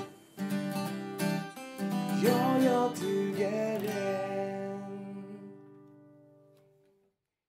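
Acoustic guitar strumming the song's closing chords, the last chord left to ring and fade away to silence.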